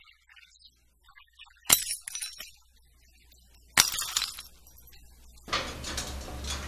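Two crashes of dishes smashing, about two seconds apart, each a sharp hit followed by a short clatter of pieces.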